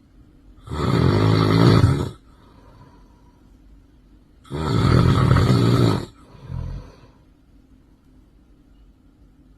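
A person snoring loudly: two long snores about four seconds apart, each lasting well over a second, the second followed by a short, weaker one.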